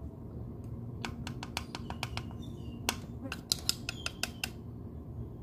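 Plastic zip bag being handled: a run of a dozen or so sharp, irregular crinkling clicks lasting a few seconds, over a few faint high bird chirps.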